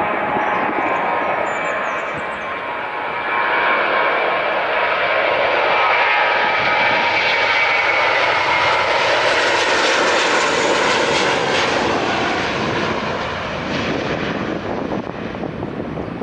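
Twin CFM56-5B turbofan engines of an Airbus A319 roaring at takeoff thrust, with a whining fan tone heard over the roar early on. The roar swells over the first few seconds, is loudest in the middle, and eases off near the end.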